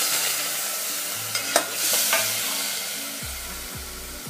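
Pieces of vam (eel) fish sizzling in hot oil in a metal pot, just after going in. The sizzle slowly dies down, with a couple of sharp pops in the middle.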